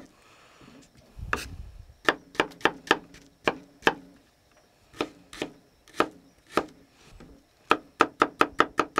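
Small paring knife chopping shallot on a wooden breadboard: irregular sharp taps of the blade on the board, with a quick run of chops near the end.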